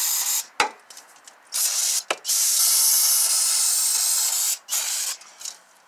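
Aerosol brake cleaner spraying in several hissing bursts, the longest about two seconds, with two sharp clicks between bursts.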